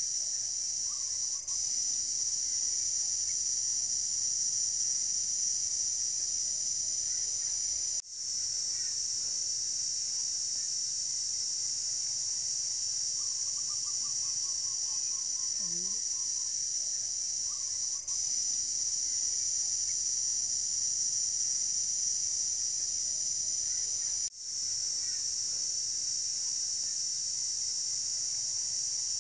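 Steady, high-pitched drone of insects, with a few faint bird calls now and then. The sound dips briefly at a few edits.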